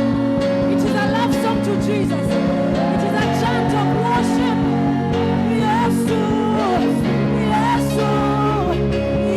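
Live gospel worship music: sustained keyboard chords over a bass line, with a wordless singing voice weaving a melody above.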